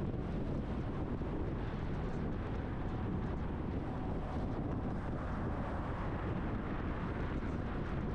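Steady road and wind noise of a truck driving along, an even rushing noise that is strongest low down and does not change.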